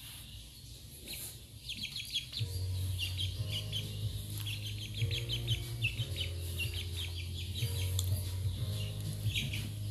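Young chickens peeping, quick runs of short high chirps that start about a second and a half in and keep coming. Background music with held low notes plays underneath.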